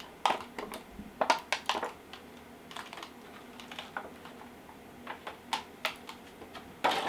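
Rigid plastic clamshell packaging being handled and pried open to free a computer mouse: irregular sharp plastic clicks and crackles with short pauses, a loud cluster near the end.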